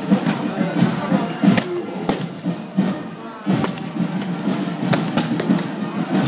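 Music and the chatter of a crowd lining a street procession, with sharp knocks and cracks scattered irregularly through it.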